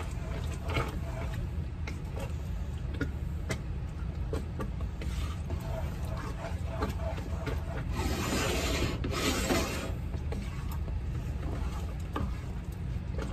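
A spoon stirring thick, simmering apple butter in a stainless steel stockpot, rubbing and scraping along the pot with scattered soft taps. About eight seconds in comes a louder rasping stretch in two parts.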